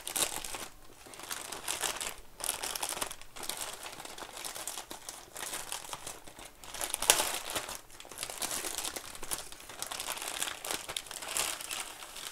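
Thin clear plastic bag crinkling and tearing as it is torn open and peeled off plastic model kit sprues, with a louder crackle about seven seconds in.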